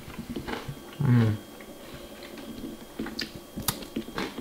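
Someone chewing a crunchy breadstick dipped in tzatziki: a scatter of small crunches and clicks, with a short hummed vocal sound about a second in.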